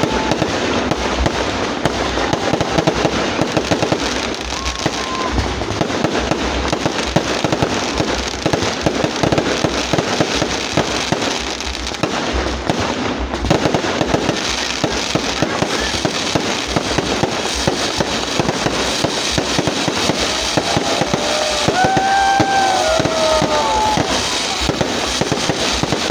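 Many fireworks and firecrackers going off at once in a continuous dense crackling and popping. A few short wavering tones rise above it about two-thirds of the way through.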